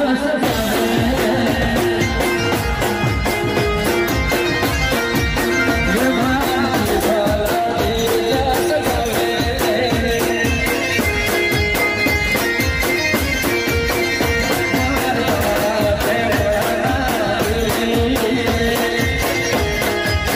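Live Gujarati folk music played loud through a PA: a fast, steady dhol drum beat under a repeating melody line.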